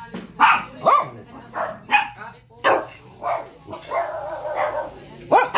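Several small long-haired dogs barking and yipping, in short sharp barks about twice a second with a longer whining call around the middle: excited begging barks for food held above them.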